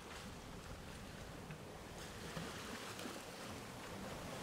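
Steady rushing noise with a low rumble, growing slowly louder.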